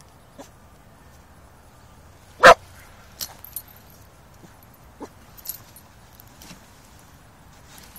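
A dog barks once, loudly, about two and a half seconds in. A few faint clicks follow.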